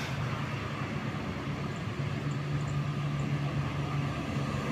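Road traffic: a vehicle engine running as a low steady drone under road noise, a little stronger from about two seconds in.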